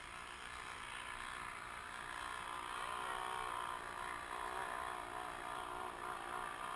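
ATV engine running, faint, getting a little louder from about two seconds in.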